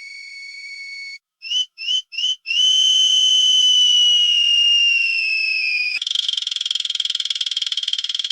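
Fishing reel during a cast: a high whine from the spinning spool, cut off about a second in, then three short chirps and a long whine that slowly falls in pitch. About six seconds in it gives way to fast, even clicking from the reel.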